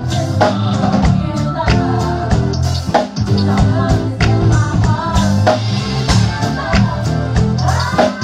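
A live band plays an R&B groove: electric bass and drum kit keep a steady beat, with a melody line rising and falling above them.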